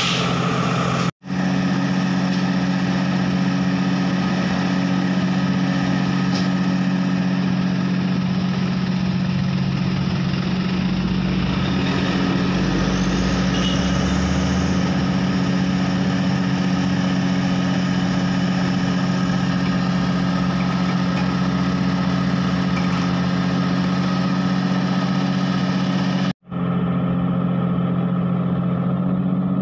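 Heavy diesel engine idling steadily with a low, even drone. About halfway through, a motorcycle passes with a brief rumble and a rising whine. The sound breaks off for a moment twice.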